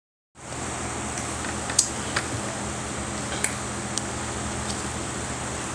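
A steady room hum, with about five light, sharp clicks and taps as a clear plastic food tub is handled.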